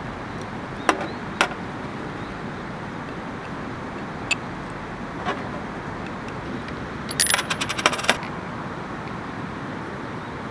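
Small metal clicks and clinks from a metal mosquito-coil holder being handled on a stainless steel table: a few single taps, then a quick rattle of clicks about seven to eight seconds in, over a steady background hiss.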